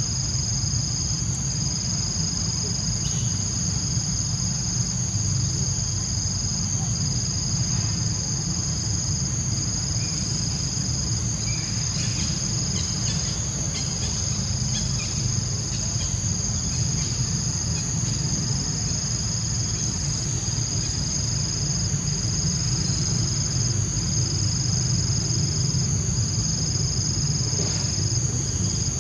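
Steady, high-pitched shrill of insects, two unbroken high tones with small regular dips, over a low steady rumble.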